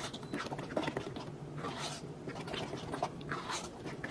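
A metal spoon stirring thick, creamy macaroni and cheese in a pot, giving soft wet squelches about twice a second.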